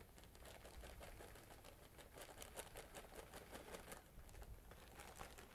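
Faint rustling of a plastic bag of shredded artificial snow being shaken out into a jar, with light irregular pattering of the flakes.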